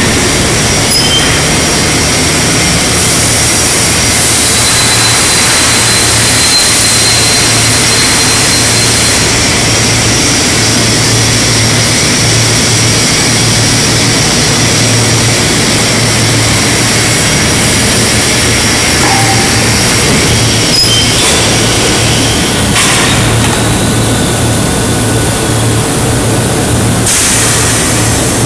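Steady, loud machinery din of a steel fabrication shop: a low hum under a continuous hiss, with a faint high whistle for a few seconds.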